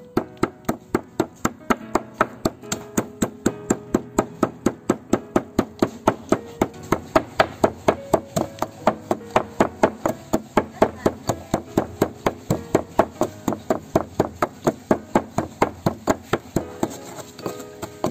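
Steady rhythmic hard knocks, about three to four a second, as chillies are chopped or pounded for a super-spicy dipping sauce.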